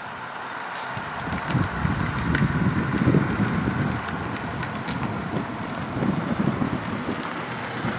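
Gusty wind noise on the microphone as a pack of racing road bicycles rides past. It swells about a second in, and a few faint sharp clicks come through it.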